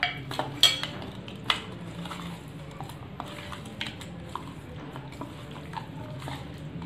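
Hands working masala paste into pomfret pieces in a steel bowl, with sharp metallic clinks against the bowl in the first second and a half, then soft scattered clicks as the mixing goes on.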